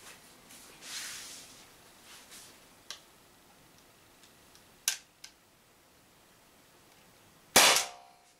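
Umarex HDP50 .50-calibre CO2 pistol firing a steel ball once, a sharp crack near the end with a short ring from the room. Before the shot there are a few light handling clicks and rustles.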